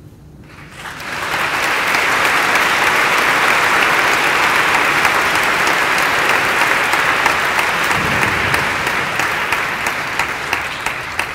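Audience applauding in a hall: the applause swells within the first couple of seconds, holds steady, and thins near the end into a few scattered claps.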